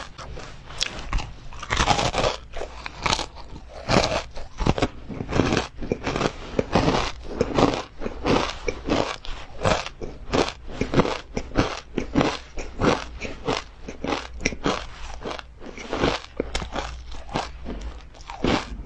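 Close-up crunching and chewing of crisp ice cream coating pieces crusted with black sesame seeds: sharp crackling bites several times a second, with no pauses.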